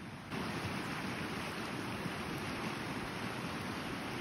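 Steady rush of a river's flowing current, stepping up suddenly in level about a third of a second in.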